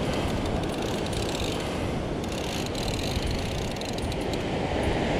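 An overhead game-fishing reel being cranked to wind in a hooked fish, its mechanism clicking, over a steady rush of wind and surf.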